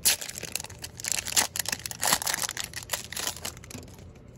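Foil wrapper of a Pokémon trading card booster pack crinkling and crackling as the cards are pulled out of it, in irregular sharp crackles that thin out near the end.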